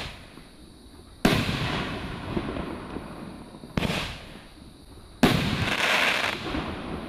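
A seven-shot consumer firework cake firing shells: three sharp bangs, about a second in, near four seconds and just after five seconds. The last bang is followed by about a second of crackle as the burst spreads.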